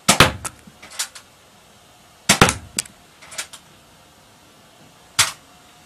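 Nerf Hammershot blaster being cocked and fired at a target: a series of sharp snaps and clicks, the loudest three at the start, about two and a half seconds in, and near the end, with lighter clicks in between.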